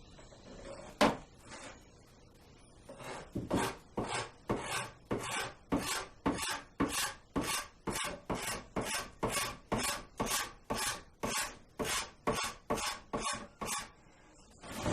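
Guitar wood being worked by hand in quick back-and-forth strokes, about two a second, starting about three seconds in. A single sharp knock comes about a second in.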